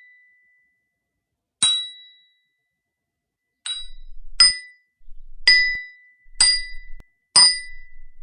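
Hammer striking a chisel: six sharp metallic blows, each ringing briefly. The first two come about two seconds apart, the rest roughly one a second.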